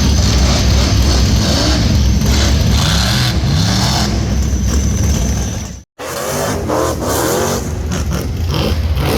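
Rock bouncer buggy engine revving hard, its pitch rising and falling repeatedly over a steady low rumble. The sound cuts out abruptly for an instant about six seconds in, then the revving goes on.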